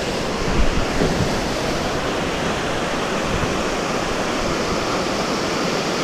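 Steady rush of a mountain creek pouring over a small rock cascade. A few low bumps come in the first second.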